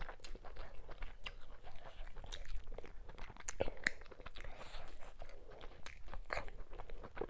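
Close-miked eating by hand: chewing with wet mouth clicks and lip smacks that come irregularly throughout. Fingers work through sticky ogbono soup and fufu between bites.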